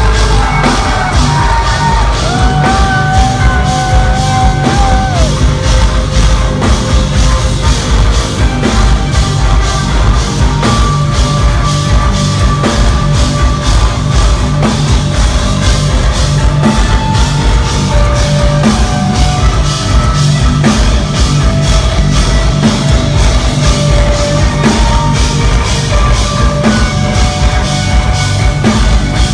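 Progressive metal band playing live, loud, heard from the front of the audience: dense, pounding drums and heavy distorted guitars, with long held notes over them in the first few seconds.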